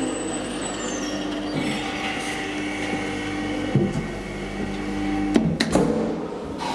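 Steady electric hum from a Schindler hydraulic elevator, briefly broken partway through. Two sharp clicks come about a second before the end.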